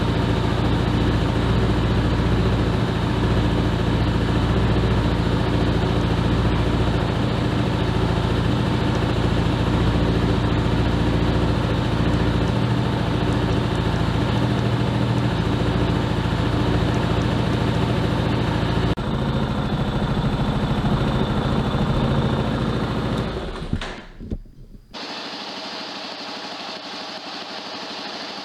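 2022 Kawasaki KLR 650's single-cylinder engine idling steadily. Its note shifts about two-thirds of the way in. Near the end the sound drops away sharply and carries on much quieter.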